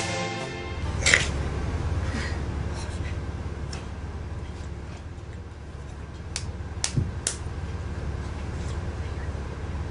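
Bus engine rumbling steadily from inside the passenger cabin, with a sharp knock about a second in and a quick run of three clicks or knocks later on.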